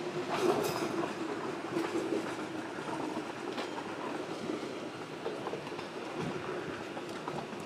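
Indian Railways passenger train running past close by: a steady rumble of steel wheels on the rails, with scattered clicks as the wheels cross rail joints.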